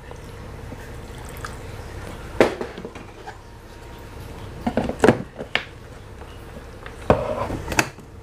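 A little water trickling into a plastic blender jar of sliced shallots, garlic and ginger, then a few sharp plastic clicks and knocks as the jar is handled and fitted onto the blender base.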